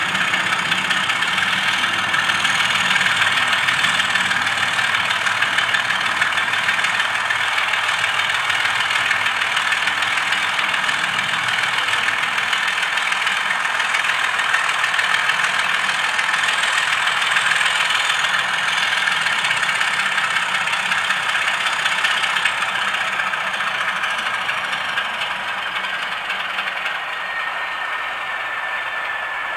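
Sampled Class 33 diesel engine sound, a Sulzer eight-cylinder, played by a DCC sound decoder through the model locomotive's small speaker, running steadily with little bass. It eases slightly in loudness over the last few seconds.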